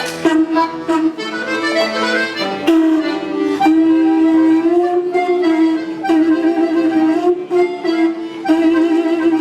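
Traditional folk music: a reedy melody played over a steady, held drone note.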